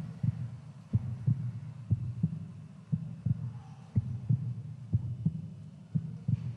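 Heartbeat: a steady lub-dub of paired low thumps, about one beat a second.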